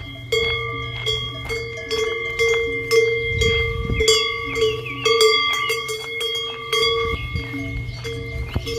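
Cowbells on cattle clanging without pause, many strikes a second over a steady ringing of the bells.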